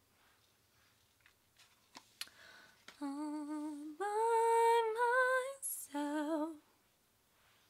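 A woman humming a short tune: a low held note, a higher note and the low note again, each with vibrato, starting about three seconds in. A few faint clicks and rustles come before it.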